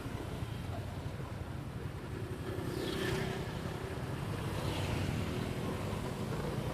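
Road noise while riding in traffic: a steady engine rumble with wind on the microphone. The hiss swells twice, about halfway through and again a couple of seconds later, as vehicles pass.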